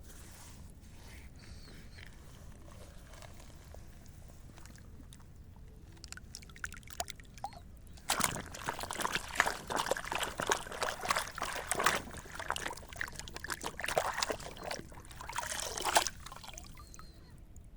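Water sloshing and splashing in irregular bursts, starting about halfway through and lasting about eight seconds.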